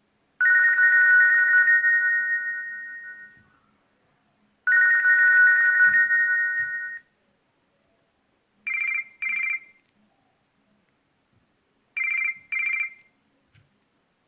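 Nokia C6-00 phone playing ringtones through its loudspeaker: two trilling, telephone-bell-style electronic rings, each a couple of seconds long and fading out, then two pairs of short high beeps a few seconds apart.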